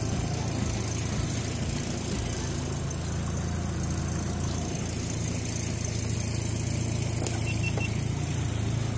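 Small boat's engine running steadily at low speed, a constant low hum.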